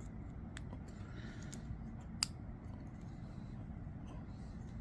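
A few faint light clicks of small metal knife parts being handled and fitted together, the pivot and lock button of a disassembled folding knife, with one sharper click about two seconds in.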